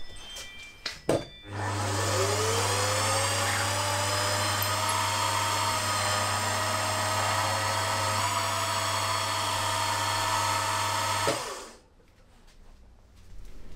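Milling machine drilling 5.2 mm clearance holes in aluminium plate with a twist drill: after a few knocks, the spindle motor starts about a second and a half in, its whine rising as it comes up to speed. It then runs steadily with a strong hum until it stops about eleven seconds in.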